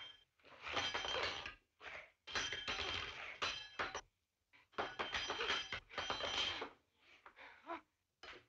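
Dishes and silverware clattering and clinking during a physical struggle at a dining table, in three long noisy bursts, with fainter scuffling near the end.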